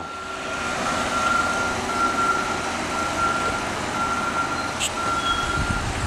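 Reversing alarm of a front-end loader beeping steadily about once a second as it backs up, over the noise of its diesel engine running. A low rumble swells near the end.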